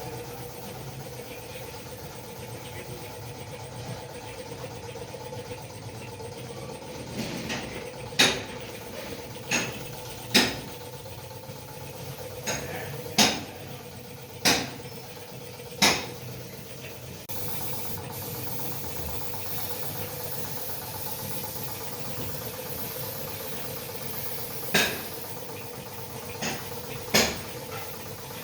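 Sharp, irregular metallic knocks and clanks, about ten of them, over a steady mechanical hum with a held tone. A higher hiss comes up partway through.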